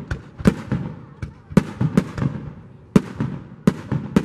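Aerial firework shells bursting overhead: a quick series of sharp bangs, roughly two a second, each trailing off in a short echo.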